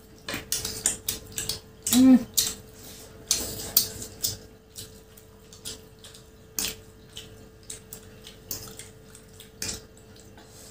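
Mukbang eating sounds: chow mein noodles being slurped and chewed up close, wet and crackly in short irregular bursts, with forks clicking against plastic plates.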